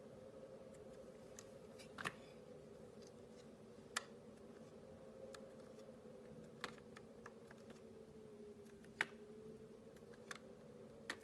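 Clear soap being cut: six short, sharp clicks spaced a second or two apart, over a faint steady hum.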